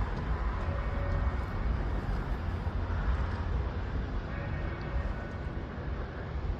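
Steady low outdoor rumble, with church bells ringing faintly in the distance over it.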